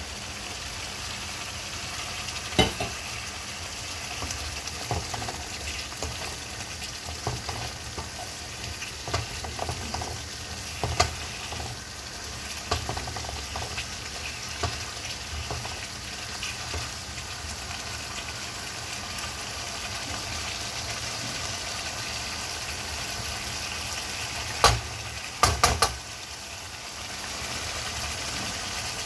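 Potato curry sizzling and bubbling in a pan, with a wooden spoon stirring and knocking against the pan now and then. A few sharp, loud knocks come about 25 seconds in.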